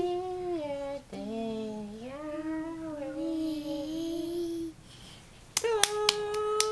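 A young child singing a slow tune in long, sliding held notes, then clapping her hands about five times in quick succession near the end, with a new held note starting after the claps.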